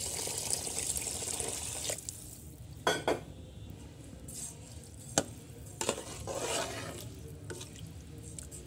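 Water pouring into a metal pot of rice and spiced gravy for about two seconds, then a metal spoon stirring and clinking against the pot a handful of times.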